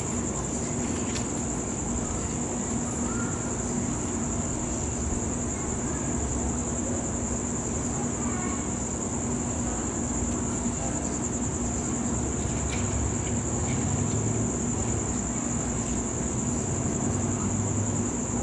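Crickets chirping in a continuous high trill over a steady low hum and dense low background noise.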